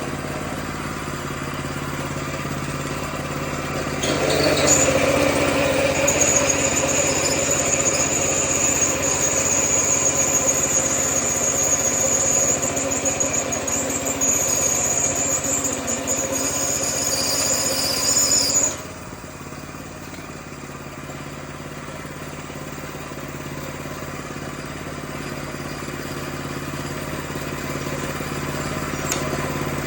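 Small engine of a 25-inch California Trimmer mower running steadily. About four seconds in it gets louder with a high whine on top, and a little past halfway it drops abruptly back to quieter running.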